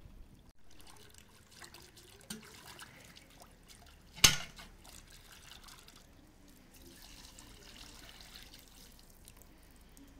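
Water splashing and trickling as leafy greens are washed by hand in a plastic bowl of water, with one sharp knock about four seconds in.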